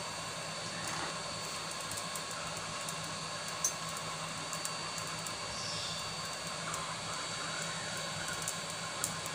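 HIKO 858D hot-air rework gun blowing steadily onto a circuit board to melt the solder and free a component: an even rush of air with a faint steady whine from its fan. A few small clicks of metal tweezers at the board.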